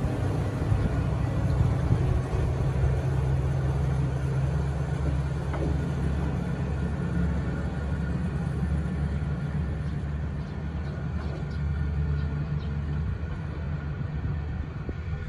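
Kominato Railway diesel railcar pulling away, its engine a steady low drone that slowly fades as the car draws off.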